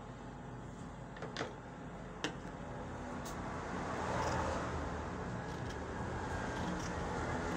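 Dressmaking scissors cutting through printed cotton fabric on a wooden table: two sharp clicks, then a continuous crunching rasp of the blades through the cloth from about halfway on.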